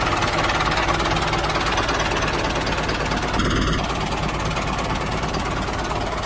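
Tractor engine running steadily with a fast low pulsing beat, with a brief high beep about three and a half seconds in.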